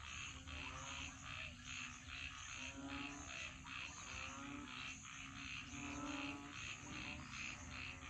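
Frogs calling in chorus: a quick, repeated higher call about two to three times a second over lower, drawn-out croaking notes, with a low steady rumble underneath.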